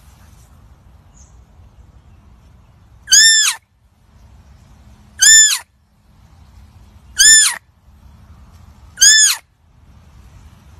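Deer fawn calling: four short, high-pitched squeaking bleats about two seconds apart, each rising and then falling in pitch, over a faint low rumble.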